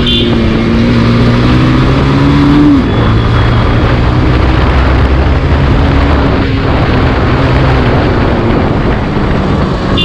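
Bajaj Pulsar 180F's single-cylinder engine running under way as the motorcycle is ridden. Its pitch rises a little, then drops about three seconds in and holds steady. Heavy wind rush on the microphone is mixed in.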